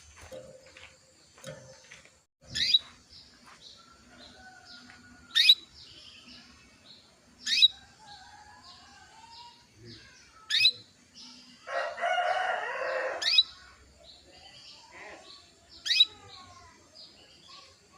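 Female canary calling: short, sharp chirps about every two to three seconds, with softer chirps between. A burst of rustling comes about twelve seconds in.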